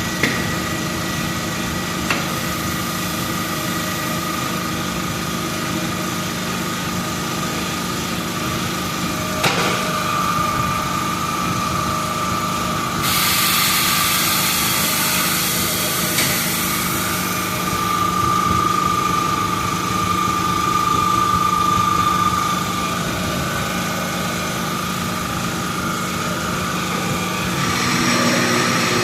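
A machine runs steadily with a constant hum and a few sharp clicks. About thirteen seconds in, a burst of high hiss starts and cuts off about four seconds later.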